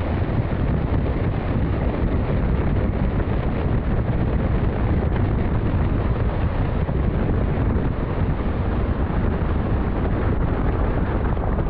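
Steady heavy wind buffeting on the microphone of a camera mounted outside a diesel pickup at speed, with the truck's running noise buried beneath it.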